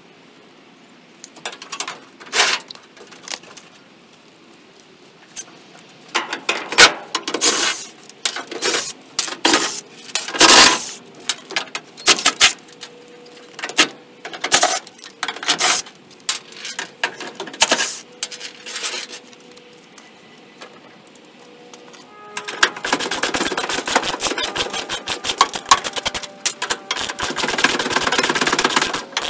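Socket ratchet and metal hand tools clicking and clinking as old fender and grill bolts are worked loose. About two-thirds of the way in, a long run of fast, steady ratchet clicking.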